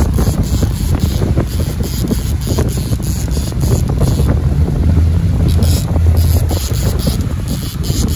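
Boat engine running steadily under a low hum, with wind buffeting the microphone.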